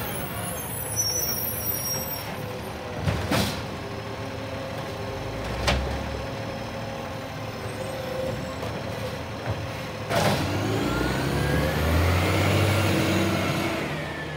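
Side-loading garbage truck collecting a wheelie bin: diesel engine running with a hydraulic whine as the automated arm lifts and tips the bin, knocks as the bin is emptied and set back down, and an air-brake hiss. Near the end the engine revs and the truck pulls away, fading.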